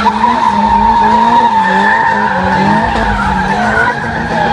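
Drift cars sliding sideways: tyres squealing in a steady high squeal, with the engines revving hard, their pitch rising and falling as the drivers work the throttle.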